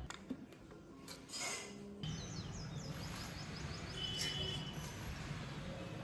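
Birds chirping: a quick run of short falling chirps about two seconds in and a brief call a little later, over a steady low hum.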